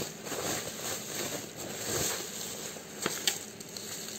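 A keycap set's package being opened by hand: rustling and crinkling, with a few sharp clicks about three seconds in.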